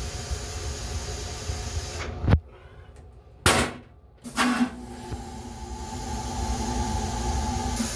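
Steady rumble and hiss of an M3 railcar running, heard from inside its small restroom. About two seconds in, a sharp knock cuts it down to a much quieter level. Two more sudden clunks follow, about a second and two seconds later, and then the rumble returns with a low steady hum.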